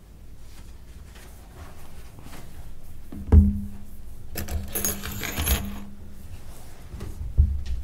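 Handling noise at a table: a thump about three seconds in, followed by a brief metallic jingle, then another thump near the end.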